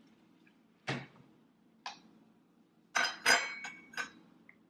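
Metal kitchen utensils and cookware knocking and clinking: a knock about a second in, another near two seconds, then a cluster of clinks with a short metallic ring around three seconds and one more about a second later.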